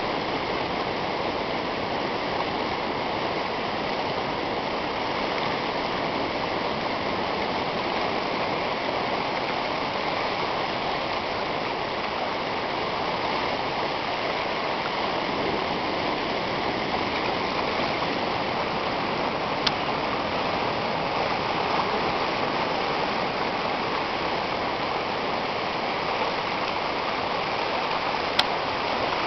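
Shallow river current rippling over a sandy shoal: a steady, even rush of running water. A faint click sounds twice in the second half.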